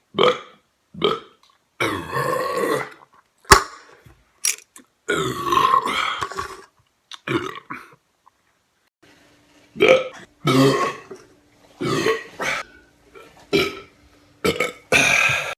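Men burping after drinking beer: about a dozen separate burps in a row, some short and some drawn out for a second or more. A sharp click comes about three and a half seconds in.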